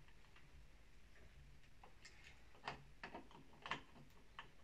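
Near silence with a handful of faint, short clicks and ticks in the second half, from a small LiPo battery and its wires being handled and fitted into the plastic pistol grip of an HPA airsoft gun.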